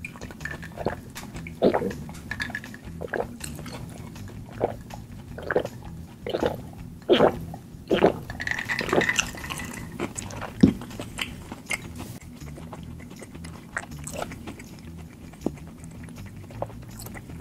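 Drinking an iced drink from a glass mug: about a dozen gulps, roughly one a second, over the first eight seconds. A single sharp knock about ten and a half seconds in is the loudest sound.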